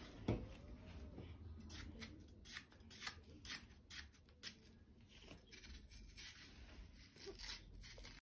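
A kitchen knife slicing a yellow watermelon wedge into pieces, a faint series of short crisp cuts and clicks as the blade goes through the flesh.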